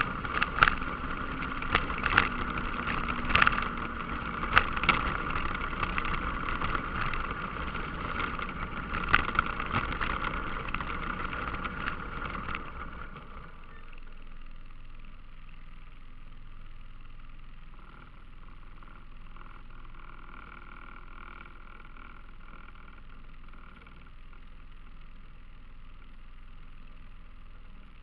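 ATV engine running as it rides along a gravel road, with a handful of sharp knocks in the first ten seconds. About halfway through it comes to a stop and the engine drops to a quieter, steady idle.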